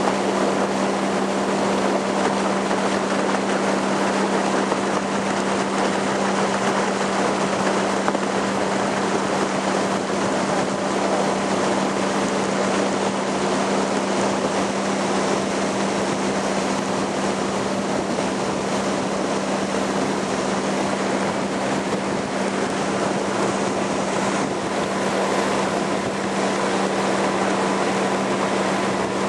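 Motorboat running at a steady speed: a constant engine hum under a steady rush of wind and water.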